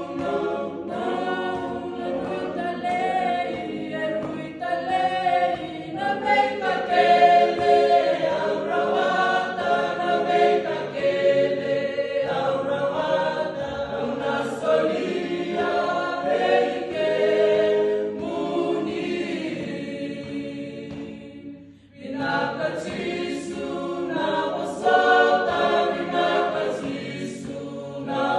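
A small group of voices singing together unaccompanied, in harmony. The singing fades out briefly about three-quarters of the way through, then starts up again.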